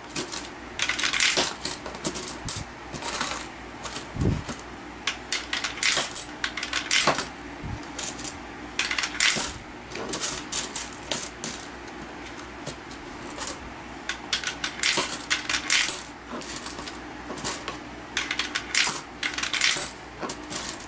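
Philippine 5-peso coins fed one after another into an Allan universal coin acceptor, each rattling through the mechanism and dropping into a box below, with a clink every second or so. This is the acceptor's calibration stage, in which it takes the 5-peso coin as a sample 20 times.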